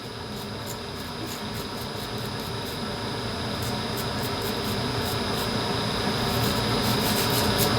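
A steady rush of air, growing gradually louder, from a tool clearing loose hair out of a clipper blade.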